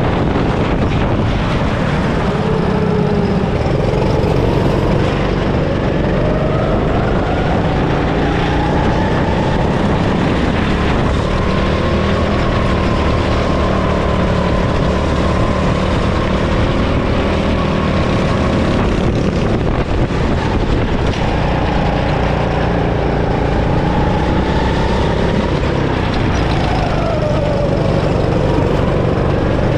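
Go-kart engine heard onboard at racing pace, its pitch climbing as the kart accelerates and dropping when it slows, with two sharp drops, one about two-thirds of the way in and one near the end.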